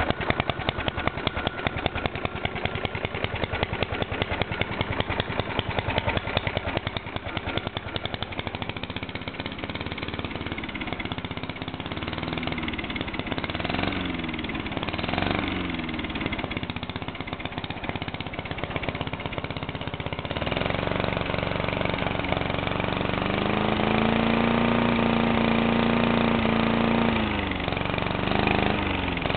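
Tecumseh single-cylinder lawnmower engine with a dual exhaust pipe, running loud. It fires in rapid uneven pulses at first, is revved up and down several times, is held at a higher steady speed for several seconds, and is blipped again near the end. The owner says it has a bad carburettor that keeps it from reaching 6000 rpm.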